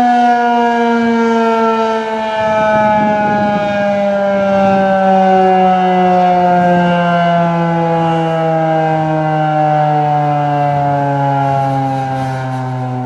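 Federal Signal 2001-130 outdoor warning siren winding down at the end of its daily test, its pitch falling slowly and steadily.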